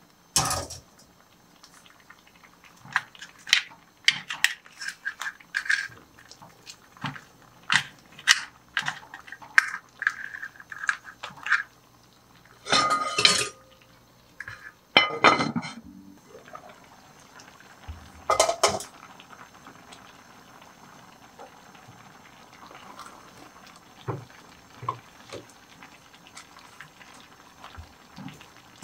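Cooking sounds at a pot of crab stew: a run of clinks and knocks of utensils and shellfish against the pot, then a pot lid set on with a ringing clatter about halfway through. Quieter soft taps and a low hiss follow.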